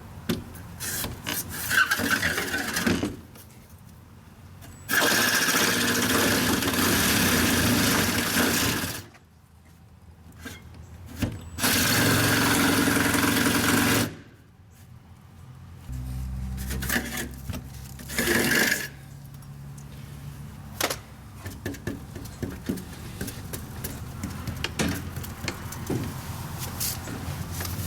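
Power saw cutting out the opening for a dog door. It runs in two long cuts of about four and two seconds, with shorter bursts and knocks of handling between them.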